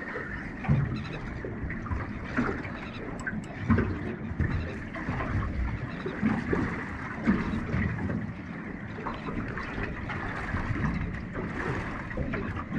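Water sloshing and trickling against a small boat, with many irregular small splashes and knocks.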